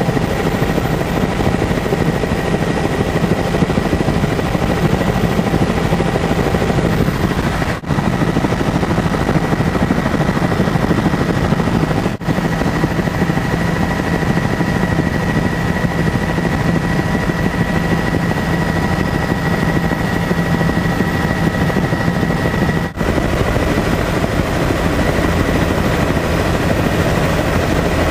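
Helicopter in flight: steady, loud rotor and engine noise with a constant high whine running over it. The noise drops out briefly three times.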